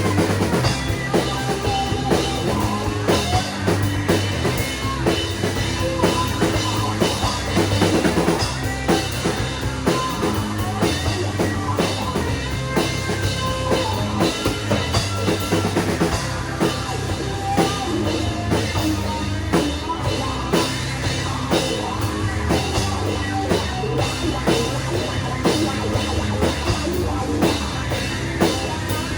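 Shoegaze rock music: a full band with a drum kit keeping a steady beat under sustained layered instruments, played continuously.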